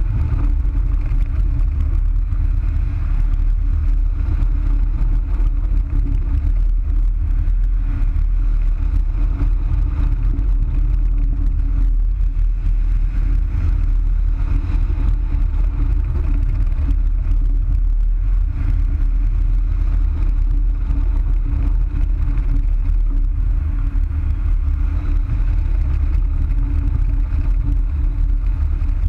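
Wind rushing over a wing-mounted camera's microphone as a hang glider flies: a loud, steady low rumble of airflow, with a faint steady hum beneath it.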